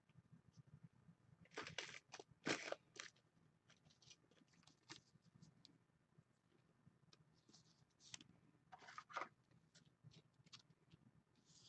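Faint rustling and clicking of trading cards being handled, the cards sliding and flicking against each other. There are short bursts about two seconds in and again near nine seconds, with near silence between.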